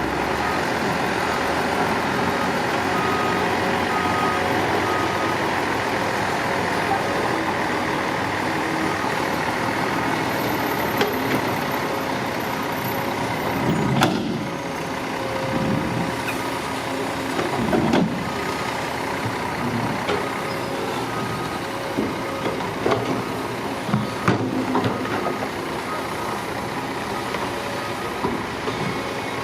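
A heavy construction machine's engine runs steadily. A reversing alarm beeps in a regular pattern for a few seconds early on and again through the last third. A few clunks come around the middle.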